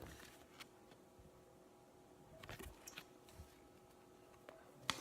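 Faint handling of baseball trading cards: a few soft clicks and rustles, clustered about two and a half seconds in and again near the end.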